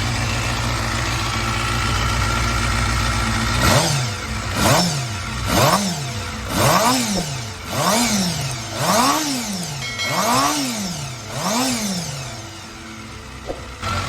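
Honda CBR250RR MC22's inline-four engine idling steadily, then, about four seconds in, blipped eight times in quick succession, each rev rising and falling in pitch, about one a second. The engine is running on freshly cleaned and tuned carburettors.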